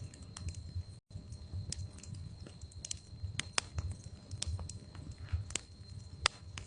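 Wood fire crackling in a fireplace: irregular sharp pops and snaps over a low steady rumble of the burning logs. A faint steady high whine sits underneath, and the sound cuts out for an instant about a second in.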